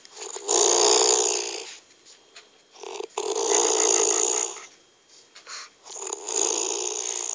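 A sleeping woman snoring: three long snores, each about a second and a half, coming roughly every two and a half to three seconds with quiet breaths in between.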